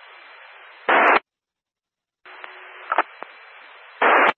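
Two-meter amateur radio repeater received through a scanner, passing open carrier with no voice on it. The steady radio hiss ends in a short, loud squelch-tail burst as the carrier drops, with a second keyed-up hiss and squelch burst following after about a second of dead silence.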